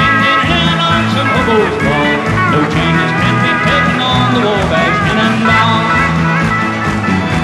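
Live country band playing an instrumental passage: a steady bass line under a lead melody of sliding, bending notes.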